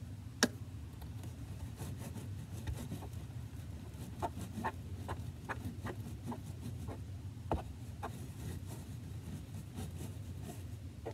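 A wooden craft stick stirring sticky glue-and-shaving-cream slime in a plastic tub, with scattered clicks and soft squelches as the stick works and knocks against the tub while more contact lens solution is mixed in. A sharp knock comes about half a second in, over a low steady hum.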